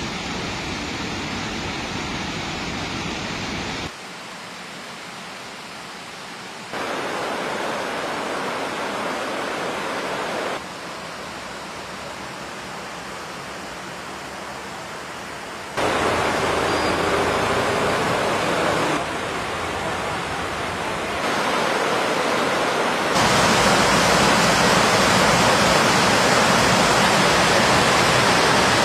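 Water released through the shutters of Peechi Dam, each raised about two inches, rushing down the spillway and churning white below. It makes a steady rushing noise that jumps up and down in loudness several times and is loudest near the end.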